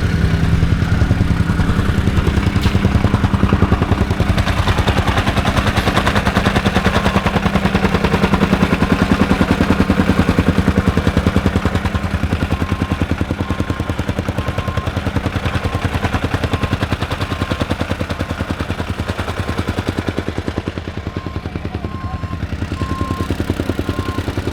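Construction machinery running with a rapid, even pulsing clatter. A faint beep repeats through the second half.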